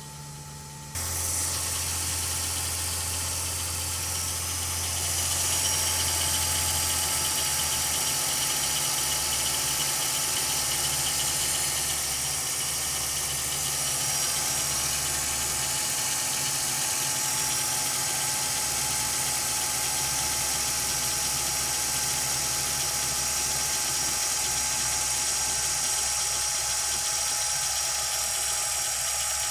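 Toyota Avensis engine idling, with a knock from the area of the timing chain tensioner that the owner is recording. The sound jumps louder suddenly about a second in, then runs steadily.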